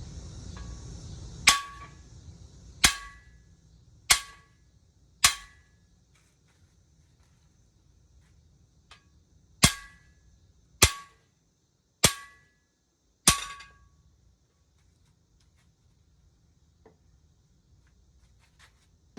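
Hammer blows on a cam bearing remover and installer tool, driving a cam bearing in an all-aluminum LS engine block. There are two sets of four sharp, ringing metal strikes, each set about a second apart.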